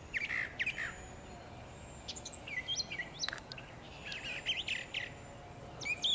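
Birds chirping: short, high twittering notes in four quick clusters, one near the start, then about two, four and six seconds in.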